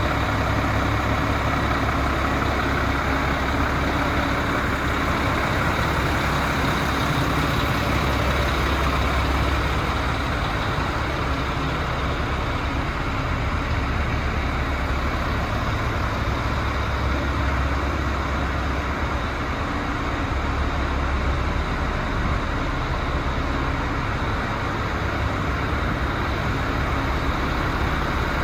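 DAF CF75 truck's diesel engine idling steadily, a continuous low running hum.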